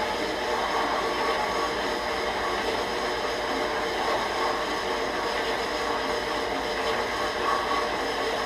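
Harbor Freight horizontal metal-cutting band saw running steadily, its blade cutting through a metal rod.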